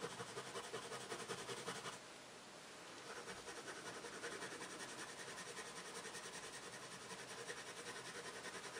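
A hard, waxy coloured pencil scratching on paper in quick, even back-and-forth shading strokes, several a second, with a short pause about two seconds in.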